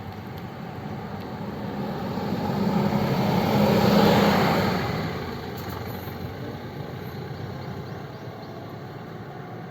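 A tour bus driving past, its engine and tyre noise growing louder to a peak about four seconds in, then fading away.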